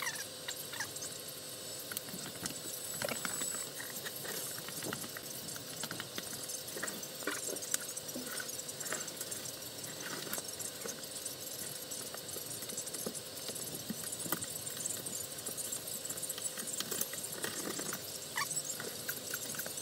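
Sped-up time-lapse sound of drywall ceiling patching: a steady hiss with many quick scrapes, clicks and short squeaky chirps from the work at the ceiling hole.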